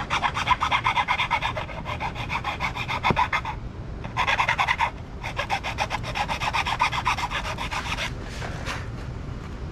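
Small hand file rasping in quick back-and-forth strokes on plastic, opening out a hole that was too tight for its locating pin. It stops briefly twice and trails off near the end.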